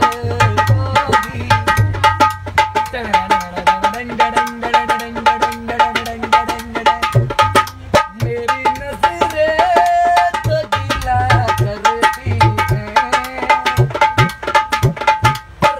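A dholak, a two-headed barrel drum, played by hand in a steady rhythm of sharp strokes and low thumps, with a man singing over it and holding a long note a few seconds in.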